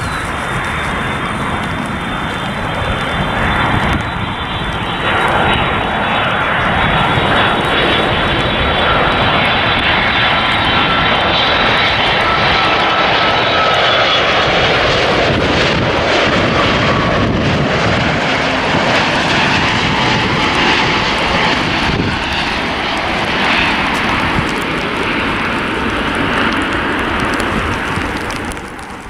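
A Japan Airlines Boeing 787's GEnx turbofan engines on final approach, gear down: a loud, steady jet rush with a high whine that slides down in pitch as the airliner passes. The noise drops away near the end.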